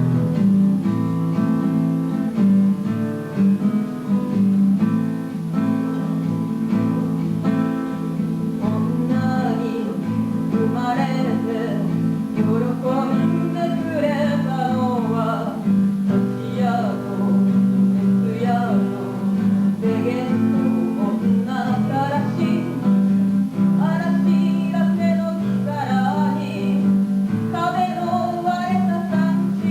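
Acoustic guitar strumming and picking a song's chord accompaniment, with a sung melody coming in over it about nine seconds in.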